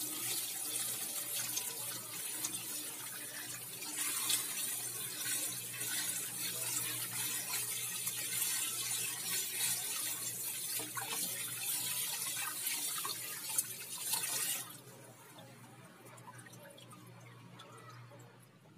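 Tap water running and splashing into a plastic basin while raw chicken breast is rinsed and rubbed by hand under the stream. The flow gets louder about four seconds in and stops suddenly about fifteen seconds in.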